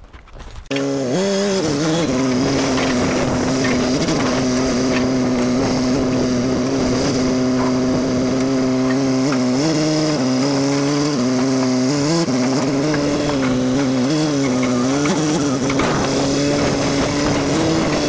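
Diesel engine of an old rough-terrain telehandler forklift running steadily, its pitch dipping and rising a few times as the machine is driven and throttled.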